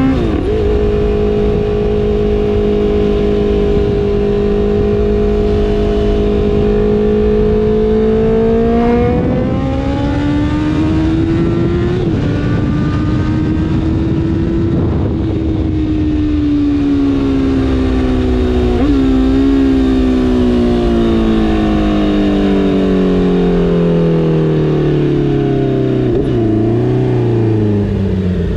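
Honda CBR650R's inline-four engine through an aftermarket R9 exhaust, running under load. Its pitch holds steady for about nine seconds, then rises and falls, with short jumps about twelve and nineteen seconds in, and sinks slowly over the last third as the revs come down.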